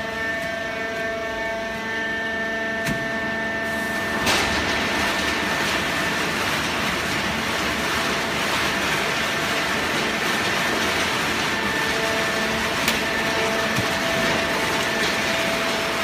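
Automatic horizontal hydraulic baling press running, its hydraulic pump and motor giving a steady whine of several tones. About four seconds in a louder rushing noise sets in suddenly and carries on under the whine, with a few faint clicks.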